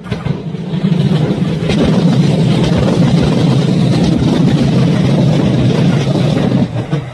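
Kintetsu electric train passing close by: a loud, steady rumble of wheels on rail that builds over the first second and falls away near the end.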